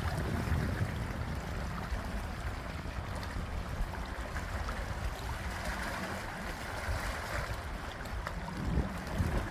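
Lake water lapping and splashing against the shore, with wind rumbling on the microphone and a couple of stronger gusts near the end.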